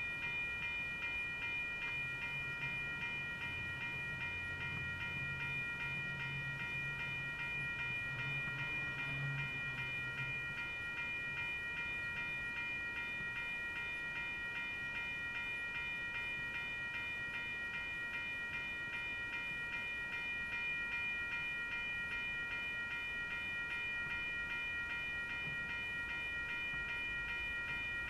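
Railroad grade-crossing bell ringing steadily in quickly repeated strikes as the crossing activates. A low hum under it from about two to eleven seconds in matches the gate arms being lowered.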